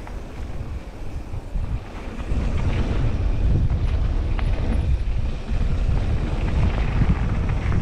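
Wind buffeting the camera microphone while riding a mountain bike downhill, with tyre rumble on the trail and a few light rattles. It gets louder about two seconds in as the speed picks up.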